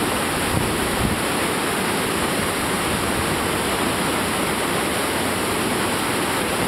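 Class III/IV whitewater rapids rushing, a steady, even roar of water with no breaks.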